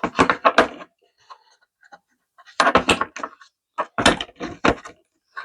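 Clattering clicks and knocks from the parts of a hole saw set being handled: hole saws and arbors taken out of and moved about in their case, in three short clusters.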